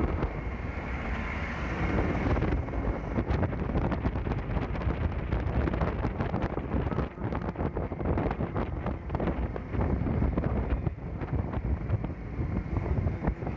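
Wind buffeting the microphone of a moving motorcycle, gusting unevenly over the steady rumble of its engine and the road.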